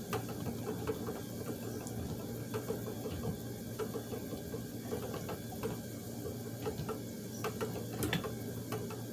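Treadle spinning wheel running as yarn is spun, its flyer and bobbin turning, with a steady low running sound and light, irregular clicking and rattling from the wooden mechanism.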